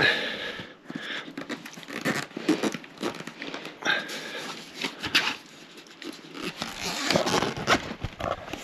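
Hands rummaging through a box of packed items: paper and plastic rustling and crinkling, with irregular knocks and scrapes as things are shifted.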